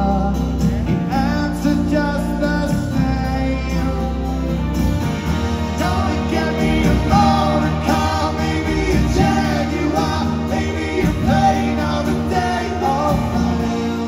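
Live rock band playing a mid-tempo song: a male lead voice singing over strummed acoustic guitar, bass, electric guitar and drums, recorded from the audience.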